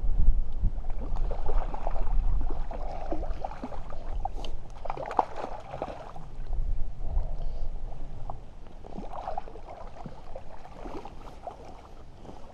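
Hooked trout splashing in the shallows as it is drawn into a landing net, in irregular splashes through the whole stretch. Wind rumbles on the microphone, heaviest at the start and easing off.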